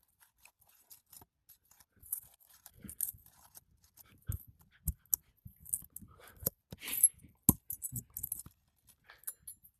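Irregular scraping and crunching of brittle old asphalt shingles with sharp metal clicks and knocks, as a hand tool is worked under them to pry the roofing nails loose; the busiest stretch is in the middle, with several hard knocks.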